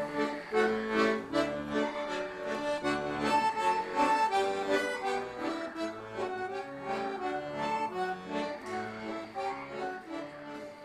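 A folk band playing an instrumental folk tune, a melody of held notes over an alternating bass line, dropping away near the end.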